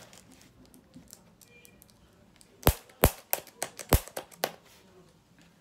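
Packing tape on a cardboard box being picked at and torn open with a pen: faint scratching, then about six sharp cracks in quick succession a little past halfway as the tape gives.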